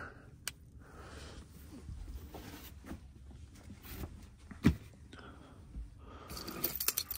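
A few faint clicks and knocks of things being handled, with one sharp knock about halfway through and a quick run of clicks near the end.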